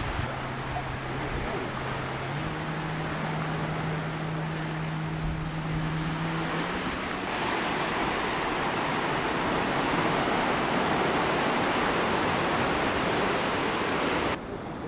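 Surf washing onto a beach, a steady rushing noise that grows louder about halfway through and cuts off abruptly just before the end. A low steady hum sits under it for the first half, rising a step in pitch about two seconds in.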